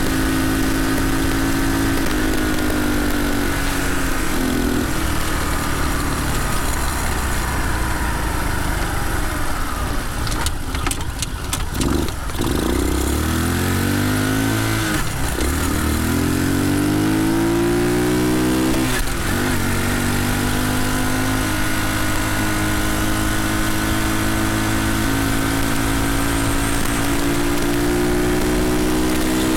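Small single-cylinder four-stroke engine of a CT70-clone mini bike, heard from on board while riding: steady cruising, then the engine drops off about ten seconds in and revs up again in rising sweeps, shifting up through the gears, before settling back to a steady cruise.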